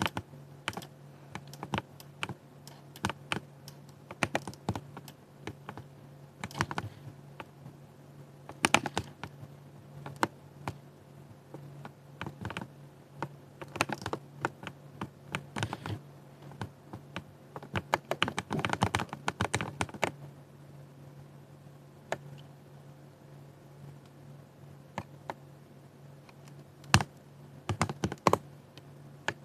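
Typing on a 60% mechanical keyboard: irregular sharp key clicks, with a dense flurry of fast keystrokes about two-thirds of the way in and then a few sparse taps. A steady low hum runs underneath.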